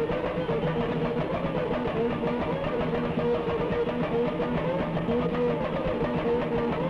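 A samba percussion ensemble plays a dense, fast, steady rhythm on drums and shakers, with a repeating melody line over it.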